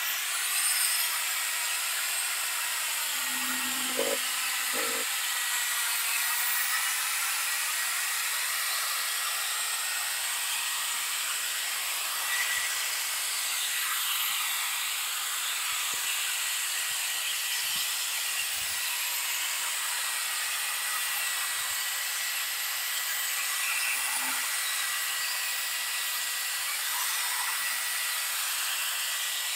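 Corded Black+Decker drill running steadily with a sanding pad pressed on a wet plastic headlight lens: an even whir with a thin high whine.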